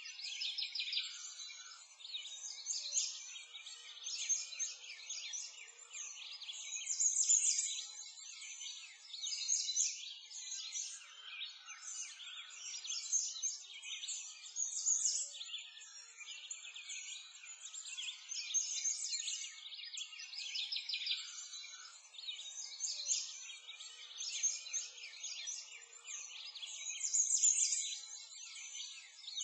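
Birds singing in a dense chorus, many high, quick chirps and trills overlapping and swelling every couple of seconds.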